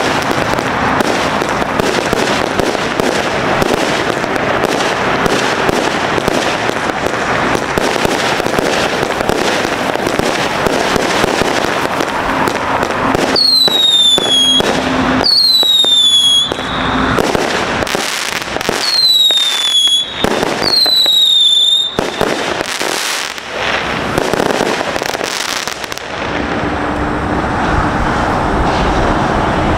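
A 138-shot consumer fireworks cake firing: a rapid, continuous barrage of launches and bursts with crackling. Partway through come four falling whistles. The barrage thins out and stops a few seconds before the end.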